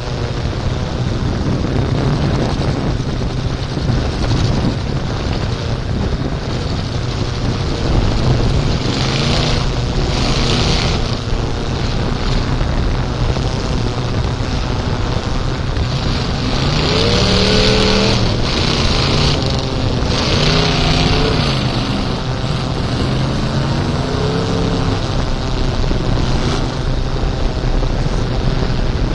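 Mud-bog truck engine running through a flooded mud pit, revving up and down several times in the second half, over steady wind noise on the microphone.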